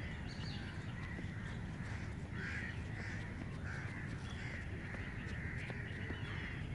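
Crows cawing in a run of short harsh calls, about two a second from about two seconds in, over a steady low rumble.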